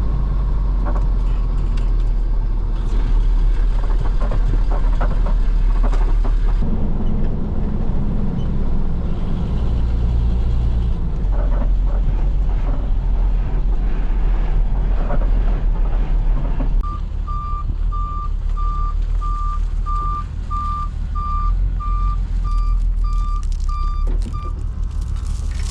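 Diesel chip truck's engine running with a heavy low rumble; a little over halfway through its reversing alarm starts, a steady run of evenly spaced single-pitch beeps lasting about seven seconds as the truck backs up.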